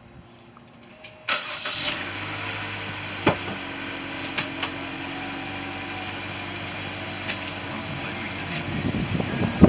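2014 Chevy Sonic's 1.4-litre turbocharged four-cylinder starting about a second in and settling into a steady idle, breathing through a newly fitted ZZP aftermarket downpipe. A few light clicks sound over the idle.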